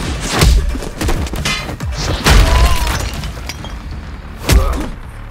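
Fight sound effects over a music score: a series of sharp hit impacts, the heaviest about two seconds in and again near the end, with a crash of something shattering.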